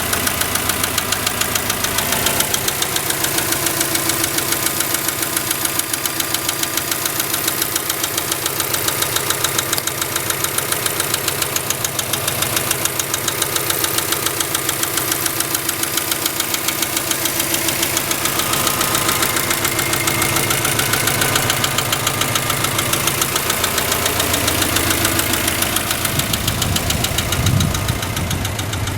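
Subaru EJ20 twin-turbo flat-four engine running with a steady rapid knock from inside the engine. Near the end it briefly gets louder and deeper.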